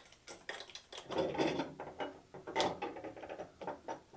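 Irregular metallic clicks and rattles, with a busier stretch of scraping and clatter about a second in, as a metal mounting bar is worked loose by hand from between the cell modules of a Nissan LEAF battery pack.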